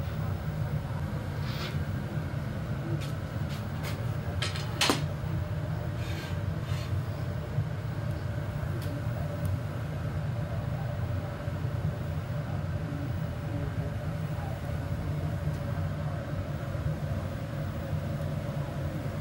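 Steady low roar of a glass studio's gas-fired glory hole burner. Several short, sharp metal clicks of the blowpipe and hand tools come in the first seven seconds, the sharpest about five seconds in.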